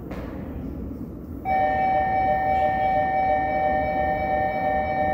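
A brief hiss at the start, then about a second and a half in a loud, steady two-note electronic tone begins and holds unchanged: a subway platform's train-approach alert.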